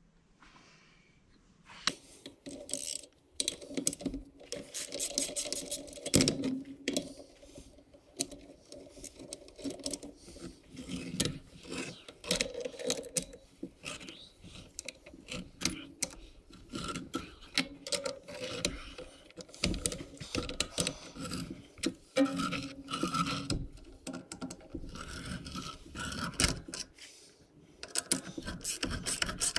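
Hand tools clinking, tapping and scraping on the steel parts of a dozer steering clutch, in an irregular run of sharp metal clicks that starts about two seconds in. Near the end a ratchet wrench turns a bolt in the clutch hub.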